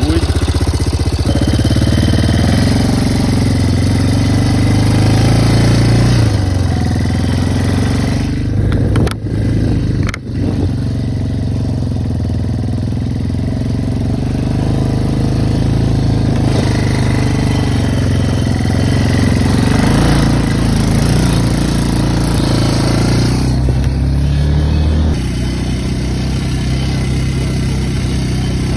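Quad (ATV) engine running under way, its pitch rising and falling with the throttle. There are two short dips about nine and ten seconds in, and the level drops near the end.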